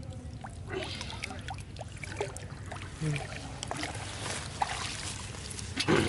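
Shallow muddy pond water splashing, trickling and dripping as hands pull an eel out of the mud and lift it clear, in many short irregular splashes over a steady low rumble, with a louder burst just before the end.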